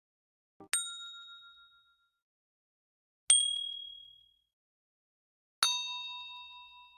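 Three separate chime dings about two and a half seconds apart, each a single bright strike with a ringing tone that fades over a second or so; each is pitched differently, and the last rings longest.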